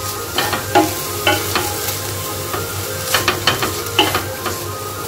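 Wooden spatula stirring and scraping shredded chicken, sweet corn and capsicum around a stainless steel pan, with irregular knocks and scrapes against the metal over a steady sizzle of the food frying.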